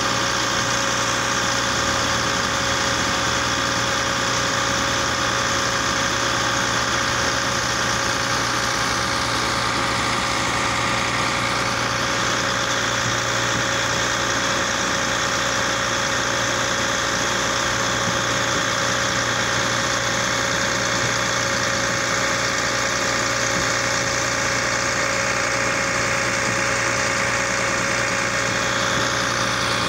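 Engine of an Orkel MP2000 Compact silage baler-wrapper running steadily at a constant speed, its even drone unchanged throughout.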